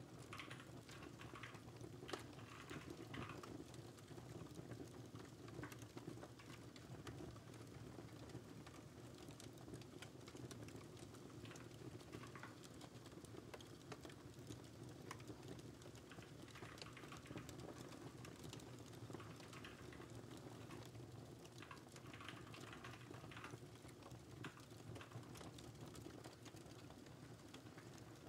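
Faint computer keyboard typing in bursts of quick keystrokes with pauses between, over a steady, faint crackling fire.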